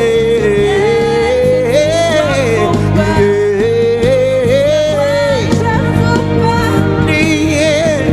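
Live gospel worship music: a singer holds long, wavering notes over a band's steady accompaniment.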